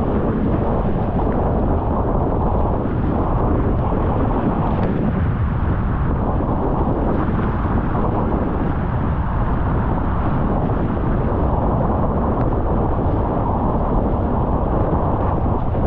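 Loud, steady rushing of wind buffeting the microphone and water streaming past the hulls of a Nacra 20 catamaran sailing fast on a beam reach.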